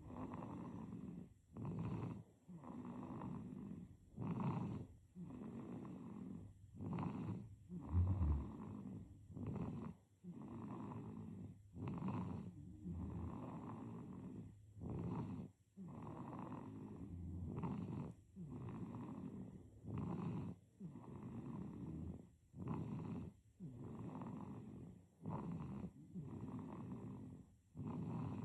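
A baby snoring in its sleep, an even rhythm of breaths with a louder snore about every two and a half seconds. A low bump about eight seconds in.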